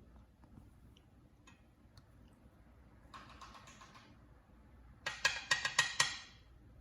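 A cockatiel beak banging, rapping its beak against a fan: a soft run of quick taps about three seconds in, then a louder run of about six rapid knocks near the end.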